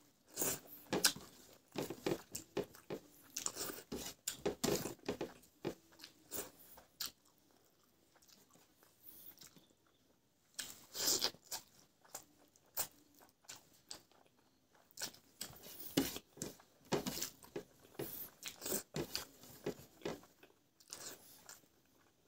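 Close-miked eating by hand, with wet chewing, lip smacks and finger sucking over a mouthful of rice and fried egg. It comes as many sharp little clicks and smacks in bursts, with a quieter pause of a few seconds about a third of the way in.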